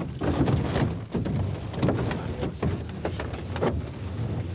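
Wind rumbling and buffeting on the microphone, with scrapes and knocks as an upturned fiberglass currach is shifted on the grass.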